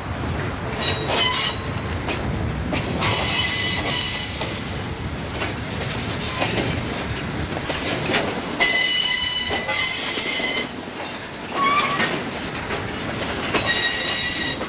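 Freight car wheels squealing against the rails in high-pitched spells a few seconds apart, the longest and loudest about two-thirds of the way through. Underneath is the steady rumble of the slowly moving cars and diesel locomotive.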